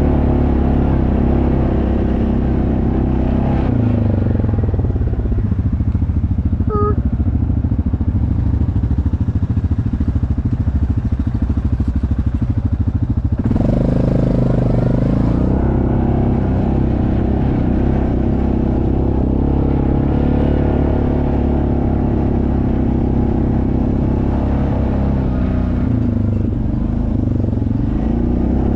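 ATV engine running steadily while riding along a dirt trail. It grows louder for about two seconds near the middle.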